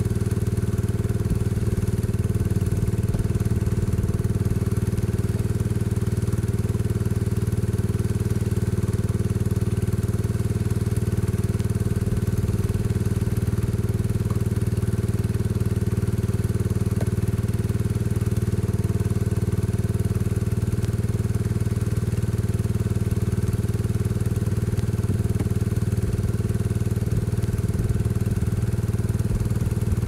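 1975 Case 224 garden tractor engine running at a steady speed, driving the hydraulic pump of a homemade log splitter.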